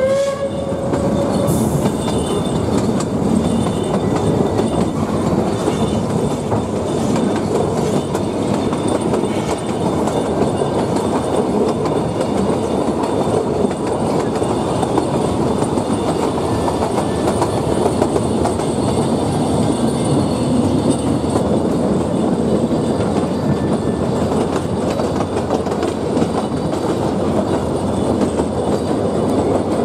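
Puffing Billy narrow-gauge steam train heard from inside an open-sided carriage: a steady rumble and clatter of the carriage wheels on the rails. A held whistle note stops about a second in.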